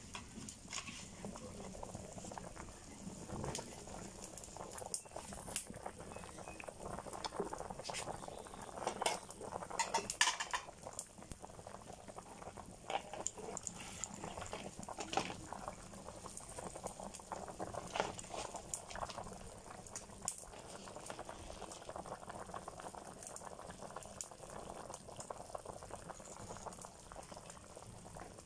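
Fish curry boiling hard in a wide pan, a steady bubbling with frequent small pops and crackles, briefly busier about a third of the way in.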